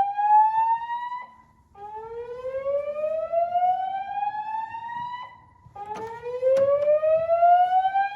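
Fire alarm voice-evacuation speakers sounding a slow whoop evacuation tone. Each whoop is a rising sweep of about three and a half seconds, and the sweeps repeat after short gaps: one ends about a second in, and two more follow.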